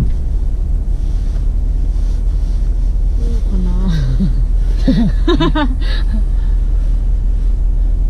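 Fourth-generation Toyota 4Runner's V8 engine and drivetrain running as the truck is driven on a trail, a steady low rumble. A person's voice is heard briefly in the middle.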